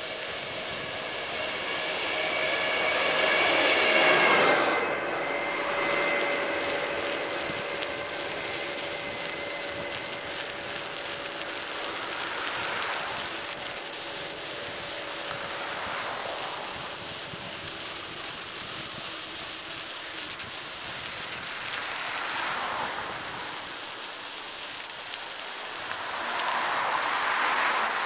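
Wind noise on the microphone and road noise from a moving bicycle, swelling and easing several times. The loudest swell, about four seconds in, carries a rising whine that stops suddenly.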